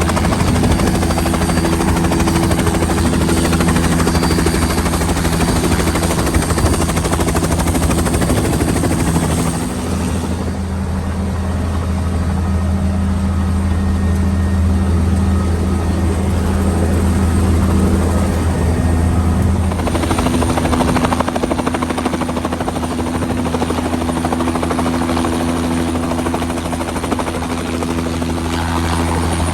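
Helicopter running in flight: a steady drone and hiss of rotor and engine. About ten seconds in, the higher hiss drops away for about ten seconds, then comes back.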